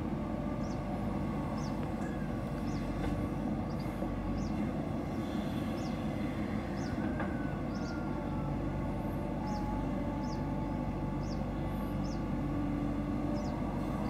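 JCB backhoe loader's diesel engine running steadily under working load as the backhoe digs and swings soil. A faint, short high chirp repeats about once a second over it.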